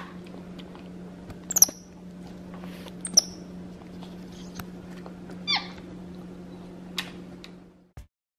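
White-faced capuchin monkey giving a few short, high-pitched squeaks over a low steady hum, with a click near the end; the sound cuts off suddenly just before the end.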